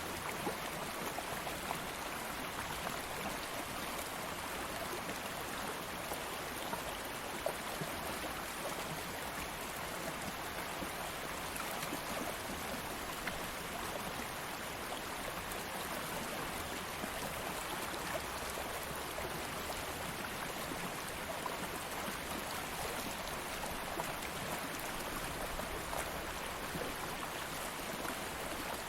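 Shallow stream of water flowing steadily, a constant rushing with small scattered splashes and trickles.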